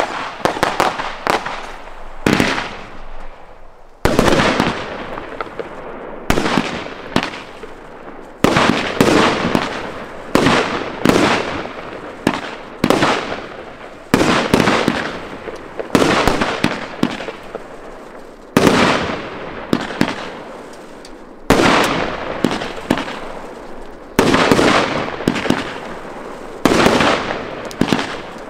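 Aerial fireworks bursting overhead in quick succession: a sharp bang every second or two, each trailing off in echo and crackle.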